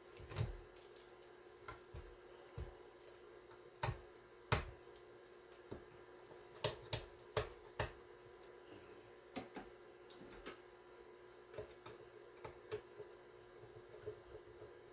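Irregular sharp clicks and taps of a screwdriver backing screws out of a small electronics box and the case being handled, over a faint steady hum.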